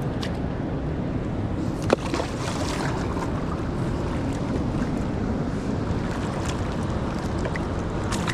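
Steady rushing of river water mixed with wind buffeting the microphone, with a single sharp knock about two seconds in.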